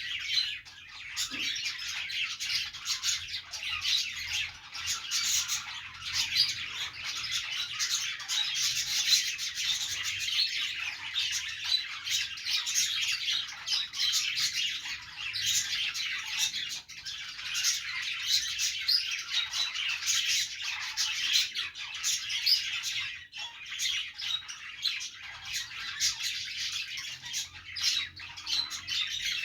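A group of budgerigars chattering without pause, many quick high chirps and calls overlapping.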